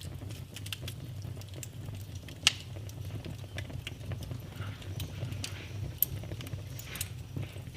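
Fireplace fire crackling: irregular small pops and snaps over a steady low rumble, with two sharper pops, one about two and a half seconds in and one about six seconds in.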